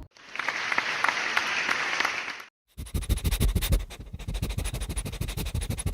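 A burst of dense, steady hiss lasting about two and a half seconds. It cuts off sharply, and after a short gap comes a fast, irregular run of clicks and rattling taps.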